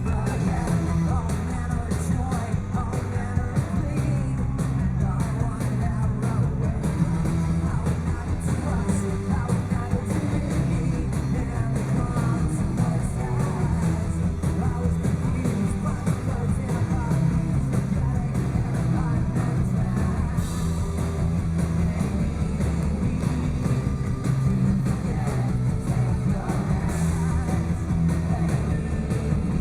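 Live rock band playing loud and steady: distorted electric guitars, bass and drums.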